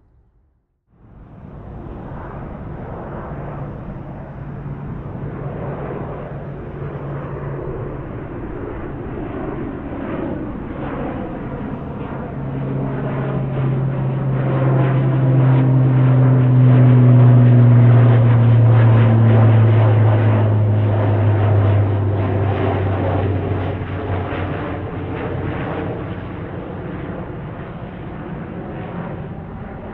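Airliner flying low overhead. Its engine noise builds to a peak about halfway through and then fades, and its low drone slides down in pitch as it passes.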